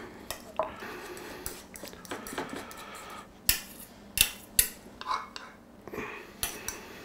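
Fork scraping and clinking against a small stainless steel bowl while mashing a hard-boiled egg, with a few sharper clinks of the fork on the bowl in the second half.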